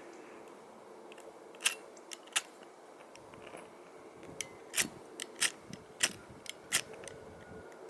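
About ten sharp, irregular clicks and taps of small hard objects being handled, with a faint rumble of handling underneath in the middle.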